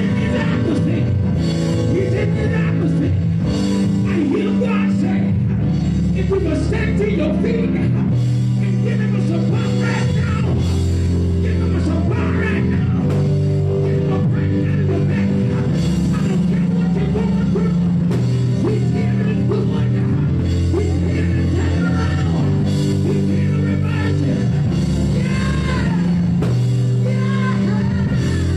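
Live church band music: sustained chords and drums played loudly without a break, with a man's voice singing in wavering runs over it through a microphone.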